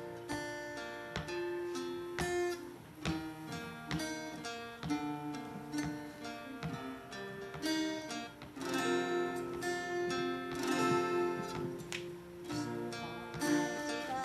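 Two acoustic guitars playing a song's instrumental introduction, picked notes and strummed chords, growing fuller about halfway through.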